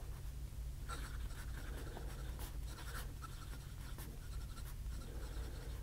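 Fountain pen with an 18K gold medium nib writing cursive on notebook paper: soft, irregular scratching of the nib's strokes, with small ticks as it lifts and touches down.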